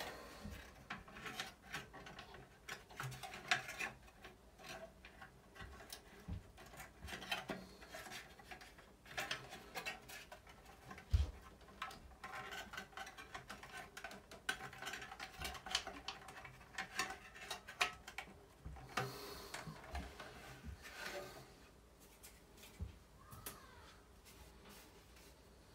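Hands working the thin sheet-metal housing of an exhaust fan loose: irregular clicks, scrapes and light rattles of metal, with one low knock about eleven seconds in.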